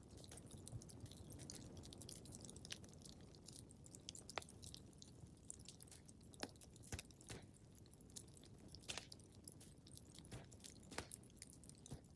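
Wood fire crackling in a fireplace: irregular small pops and snaps, a few of them sharper, over a soft low rumble of the flames.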